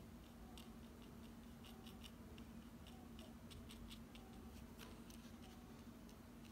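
Faint, irregular soft ticks and scratches of a small round paintbrush dabbing and stroking wet paint on watercolor paper, over a low steady hum.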